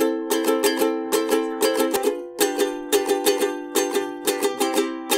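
Music: a ukulele strumming chords in a steady, bouncy rhythm, changing chord about two and a half seconds in.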